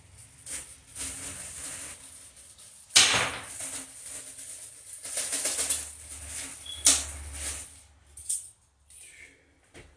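Plastic packaging rustling and crinkling as the light fixture's small hardware (wire nuts and screws) is handled, with louder sharp crackles about three seconds and seven seconds in.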